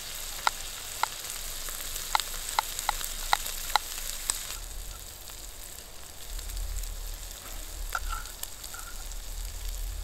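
Bacon bits, sausage and onion frying in oil in a Trangia storm-cooker pot, a steady sizzle. Over it, a knife ticks sharply against a plate about eight times in the first half as a garlic clove is cut.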